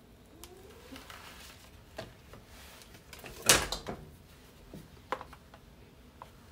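Quiet kitchen handling noises: a few light clicks and one short, louder clatter about three and a half seconds in.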